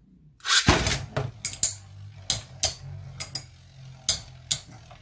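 Two spinning tops, one the metal-wheeled Hades Kerbecs, launched into a plastic Beyblade stadium with a sudden burst about half a second in, then spinning with a steady low whir while they clash, giving a dozen or so sharp clacks as they strike each other and the stadium.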